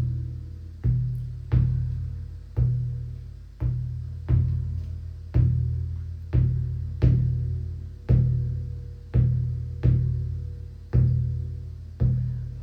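Shamanic hand drum beaten in a slow, steady rhythm of about one deep, ringing beat a second, each beat dying away before the next. The beats fall in a repeating uneven pattern, with one shorter gap in every group of three.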